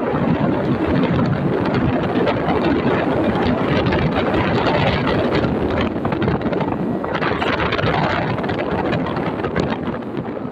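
Wind rushing and buffeting over the microphone of a moving motorcycle, a loud, continuous rush with the ride's noise underneath.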